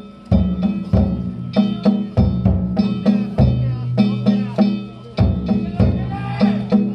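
Danjiri festival music: a large drum and small hand gongs (kane) beaten together in a fast, steady rhythm of about three strikes a second, with the gongs ringing over the drum booms.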